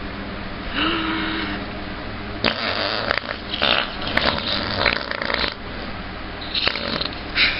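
A person making mock fart noises: a short held tone about a second in, then a run of sputtering, raspy blasts through the middle, and a couple of shorter ones near the end.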